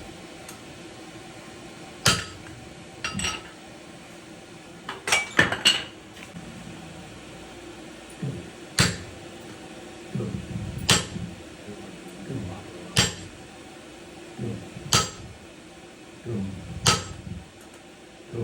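Hand-forging hammer blows on hot iron at the anvil: single sharp ringing strikes about every two seconds, with a quick run of several blows about five seconds in. A low murmur of voices runs between the strikes.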